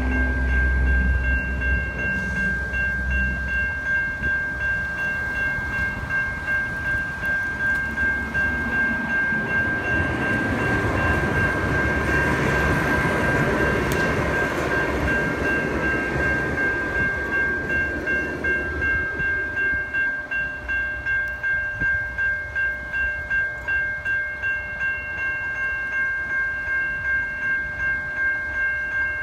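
Safetran Type 3 electronic level-crossing bells ringing steadily at about two strokes a second, a high clanging tone. A passenger train's rumble swells over them, loudest around the middle, and fades away after about ten seconds.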